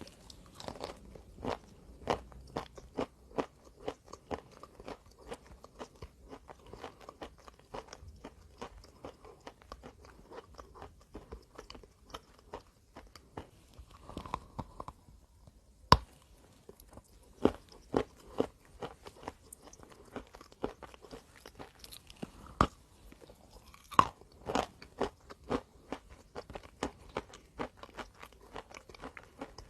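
Close-up crunching of chalk being bitten and chewed: a dense run of irregular crisp crackles, with a few louder snapping bites, one about halfway through and another a little later.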